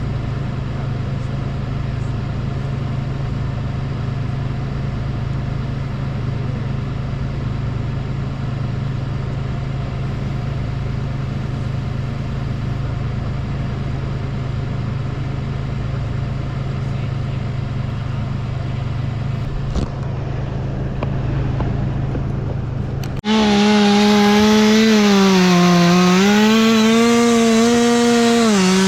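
An engine runs steadily with a low drone. Then, after an abrupt cut near the end, a chainsaw runs louder, its pitch rising and falling as it cuts wood.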